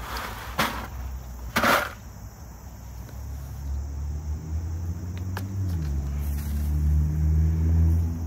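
Gravel poured from a plastic bucket onto soil, two short pours about half a second and nearly two seconds in. From about three seconds a low engine drone builds, shifting in pitch and loudest near the end.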